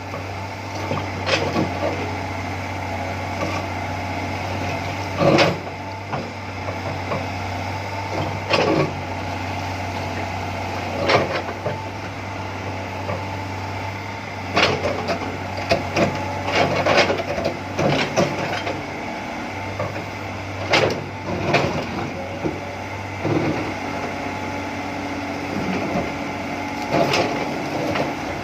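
Excavator engine running with a steady low hum, with sharp knocks and clanks every few seconds.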